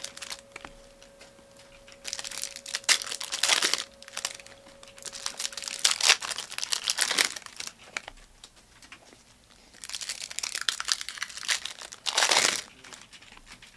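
Trading-card pack wrappers crinkling and tearing as 2022-23 Panini Optic hobby packs are ripped open by hand, in three bursts of a couple of seconds each.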